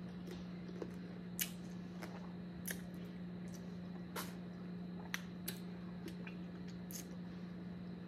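Boiled crawfish being peeled and picked apart by hand: short, scattered clicks and crackles of shell with soft wet squishes, over a steady low hum.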